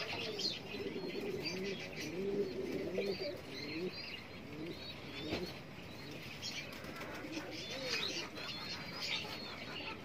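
Many caged domestic pigeons cooing, with low, overlapping coos throughout. Higher-pitched bird chirps are heard among them.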